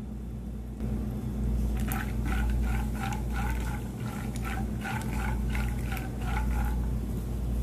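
Raw peanuts frying in oil in a non-stick pan, stirred with a silicone spatula: a run of short, even stirring strokes, about two to three a second, from about two seconds in until shortly before the end, over a steady low rumble.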